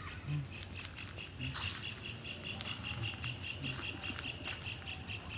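Birds calling in a wetland, with a rapid, even series of high ticking notes, about five a second, through most of it and a short upward-sweeping call at the very start.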